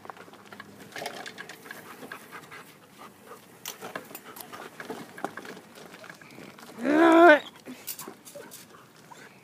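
Dog panting, with light rustling and clicks, and one loud wavering whine of about half a second about seven seconds in.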